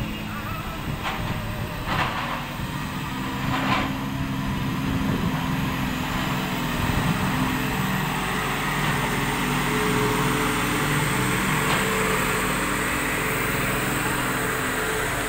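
Heavy diesel engines of a crawler excavator and a tipper truck running steadily, with three sharp knocks of metal or rock in the first four seconds.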